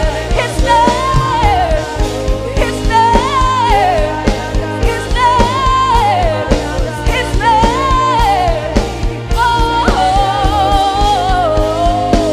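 Live gospel worship music: a band playing over a steady beat, with a sung melody line that holds long notes and slides down at their ends.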